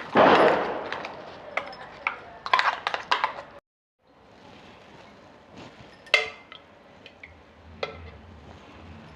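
A sudden loud noise right at the start that fades over about a second, followed by a quick run of metal clinks and scrapes of kitchen utensils. After a brief cut-out, a few sparser clinks of dishes and pans.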